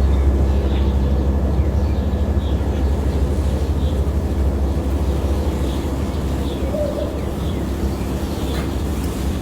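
Outdoor nature ambience: a steady low rumble and hiss, with faint short high chirps recurring about every half second.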